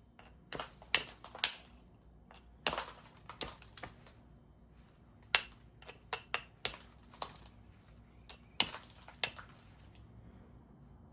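Stone biface being knapped: about a dozen sharp, ringing clicks and taps at irregular intervals as the knapping tool strikes or presses on the edge and small flakes come off, with fainter ticks between them.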